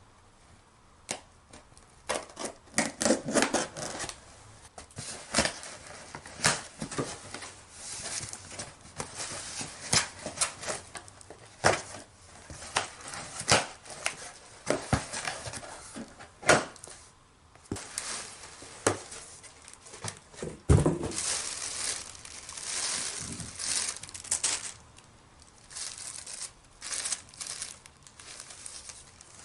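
Packaging being torn open and crinkled by hand: irregular rustling, ripping and sharp clicks, with one heavier thump about two-thirds of the way through.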